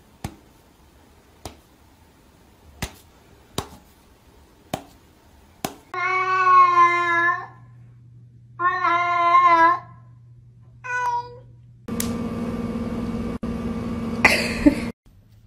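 A domestic cat meows: two long, wavering meows a couple of seconds apart, then a short one. Before them come several sharp taps about a second apart, and near the end a steady hum takes over.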